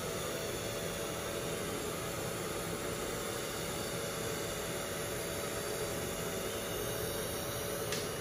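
Dental saliva ejector suction running steadily: an even hiss with a faint steady hum under it.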